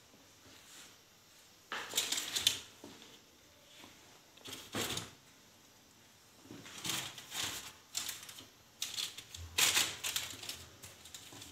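Hands handling and pressing pastry dough on a granite countertop: short bursts of rustling and tapping that come in four clusters, with quiet stretches between them.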